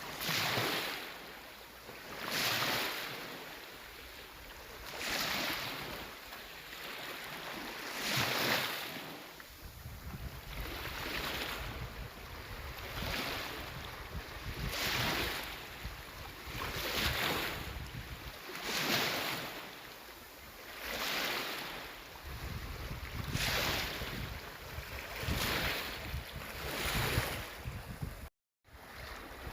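Small sea waves washing in against the shore, one swell about every two seconds.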